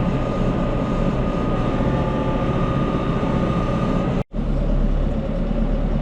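Tractor engine running steadily, with a faint steady whine over it. About four seconds in it cuts off sharply and a deeper engine rumble takes over.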